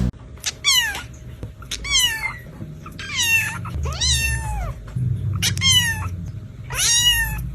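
A cat meowing repeatedly: about six high meows, each falling in pitch, roughly one every second or so.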